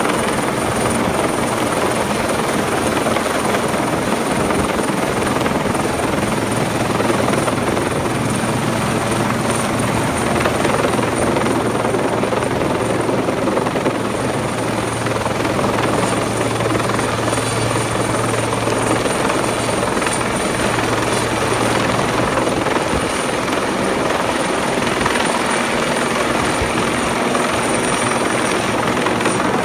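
Helicopter hovering close overhead: loud, steady rotor and engine noise with a thin high whine over it.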